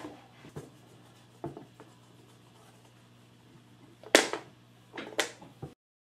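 Light handling noises: a few faint clicks and knocks, then two short, louder rustling brushes about four and five seconds in, over a low steady hum. The sound cuts off suddenly to silence near the end.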